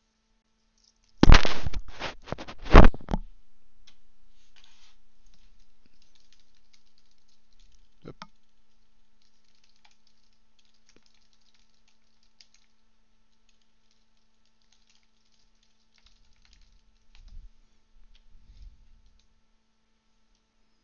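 Typing on a computer keyboard: a burst of loud, hard key clacks about a second in, then many light, rapid keystrokes for several seconds, and a few soft low thumps near the end.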